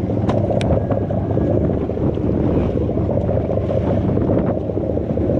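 Wind rushing over the microphone on a boat deck at sea, a steady low rumble, with a couple of small clicks in the first second.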